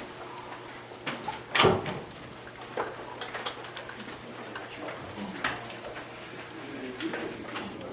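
Room noise as sheets of paper are handed around and rustled, with scattered light knocks and one loud thump about a second and a half in.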